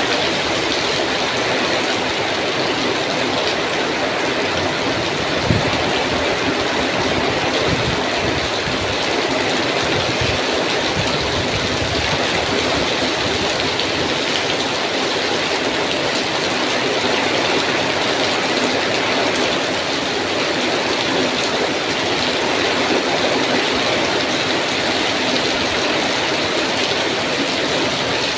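Heavy rain pouring steadily, a dense even hiss. Low rumbles come and go between about six and twelve seconds in, with one brief knock about five and a half seconds in.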